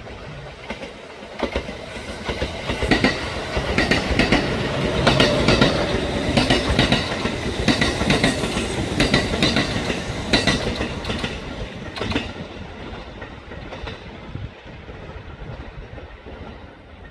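Train wheels running over rail joints in a clickety-clack, the sound swelling to a peak about five seconds in and then fading.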